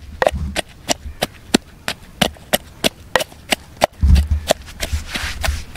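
A pestle pounding chammanthi ingredients (green mango, chilli, tomato, garlic, peppercorns, coriander leaves) in a mortar, crushing them into a coarse chutney: sharp, even knocks about three a second.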